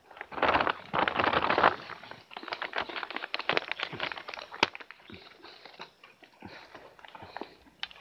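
Plastic bag crinkling and rustling as it is handled: a dense burst of crackling in the first two seconds, then scattered sharp crinkles that thin out.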